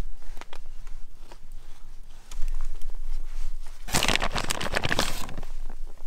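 Plastic food packaging crinkling for about a second and a half, starting about four seconds in. Scattered small clicks and taps come before it as sauce is spooned onto the pizza.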